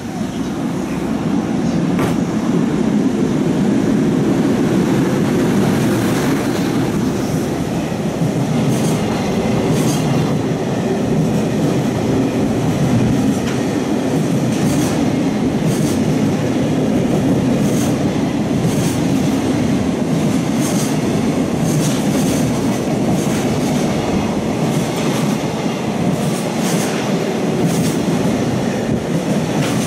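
Container freight train hauled by an EH500 electric locomotive passing close by at speed. Its wheels rumble heavily on the rails, growing louder over the first couple of seconds as the locomotive arrives. Regular clacks, often in pairs, come as wheel sets pass over rail joints.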